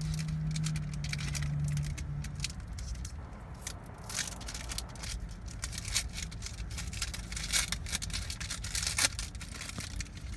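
Foil trading-card pack being torn open and handled, an irregular run of crinkles, crackles and tearing rustles. A steady low hum sounds under it for the first two seconds or so.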